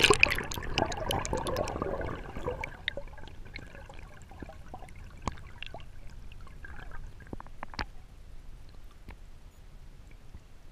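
Water gurgling and bubbling around a submerged camera, heard underwater. It is loud for the first two or three seconds, then dies away to a quiet hiss with scattered sharp clicks.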